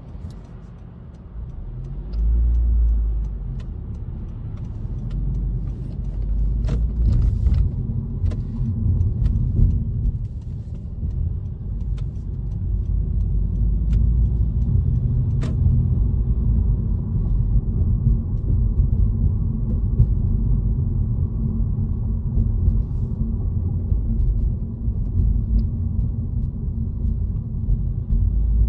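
Steady low rumble of a car driving, heard from inside the cabin: engine and tyre noise that grows louder about two seconds in as the car moves off. A few light clicks come through in the first half.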